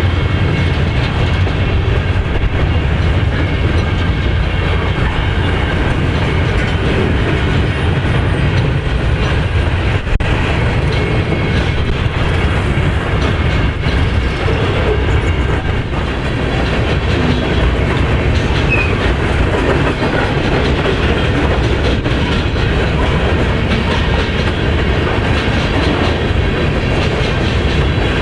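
Freight train cars rolling past on the rails, a steady, unbroken sound of wheels on track.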